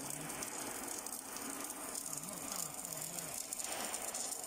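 Welding arc of an automatic CNC pipe welding machine crackling steadily as it welds the seam of a pipe turning in the chuck.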